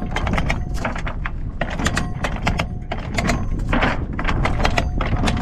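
Anchor chain clanking link by link over the bow windlass as it is hauled in, a quick irregular run of metallic clicks and knocks, with wind rumbling on the microphone.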